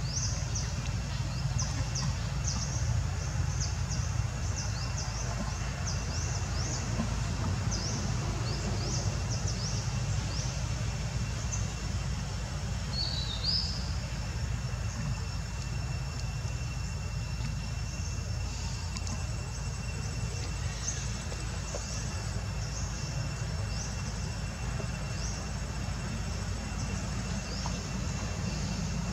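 Outdoor ambience: a steady low rumble with many short, high-pitched chirps, thickest in the first dozen seconds and scattered after that.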